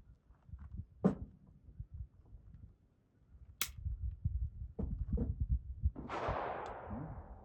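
Ruger Mark IV .22 pistol being handled for takedown: several sharp metallic clicks and knocks, the sharpest about three and a half seconds in. A rushing noise comes in about six seconds in and fades out near the end.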